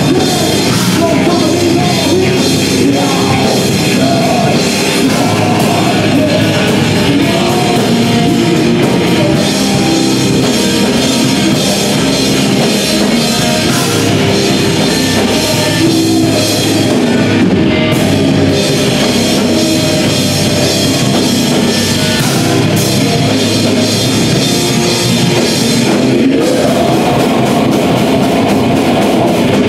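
Death grindcore band playing live, loud and dense without a break: distorted electric guitar, drum kit and a vocalist singing into a microphone.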